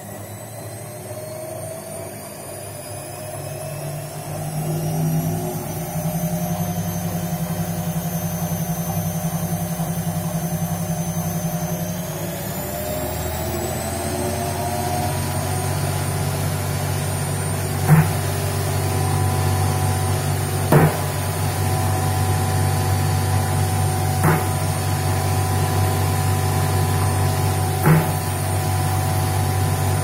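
Front-loading washing machine spinning up in two stages. Its motor whine rises over the first few seconds and again about halfway through, then it runs steadily at the higher speed. Four sharp knocks come a few seconds apart in the second half.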